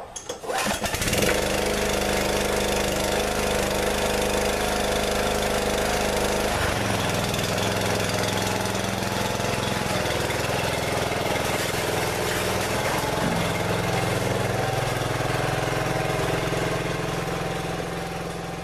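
Briggs & Stratton single-cylinder mower engine pull-started on its newly replaced starter cord, catching within about a second and running steadily. Its speed shifts twice, and it fades slightly near the end as it moves away.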